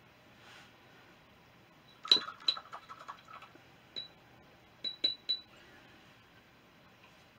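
Small glassy clinks of painting tools knocking against glass: a cluster of sharp taps about two seconds in, one more near four seconds and three in quick succession near five seconds, each with a short high ring.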